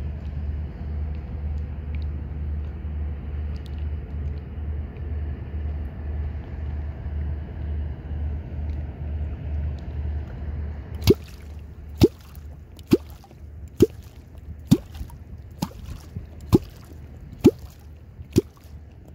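A small Honda four-stroke outboard motor runs with a steady low throb, then falls away about eleven seconds in. A catfish clonk is then struck into the water nine times, about once a second. Each stroke is a sharp hollow pop with a short falling bloop, the call used to draw wels catfish.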